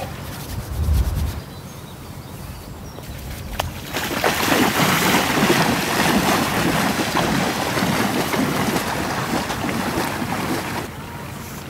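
Baltic Sea water washing and splashing at the shoreline, with wind on the microphone. It grows louder about four seconds in and eases near the end.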